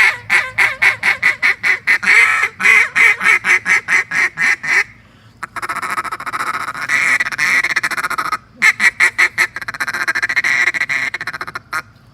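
Landing Gear Calls 'Sassy Susie' 3D-printed waterfowl call blown by mouth, at medium volume. It gives a run of quick, evenly spaced calls about five a second for nearly five seconds, then a fast rolling chatter, then another run of quick calls.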